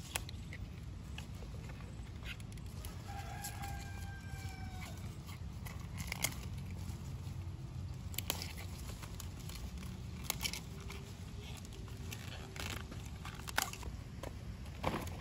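Chickens: one drawn-out, slightly falling call about three seconds in, lasting about two seconds, with a few sharp clicks scattered through the rest.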